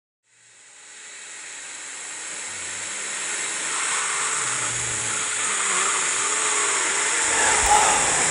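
A steady hissing noise fades in out of silence and swells over the first few seconds, then holds, with a faint low hum under it. There is a brief low thump near the end.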